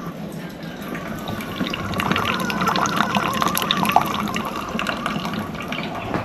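Water running and splashing into a container, swelling over the first couple of seconds and easing off near the end.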